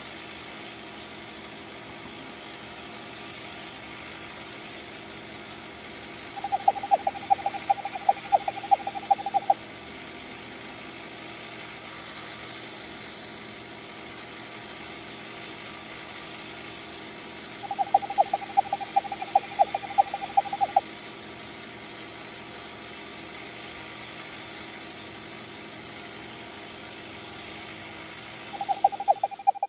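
Gilbert Erector DEW Line radar model running under its motor, a steady mechanical hum from the motor and gearing. About every eleven seconds a burst of rapid clicking from the mechanism lasts about three seconds, as the compound movement cycles.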